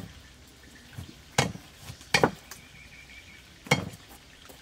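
Kitchen knives and a cleaver striking thick wooden chopping blocks while chopping garlic, green pepper and pineapple, giving a few sharp, irregularly spaced knocks.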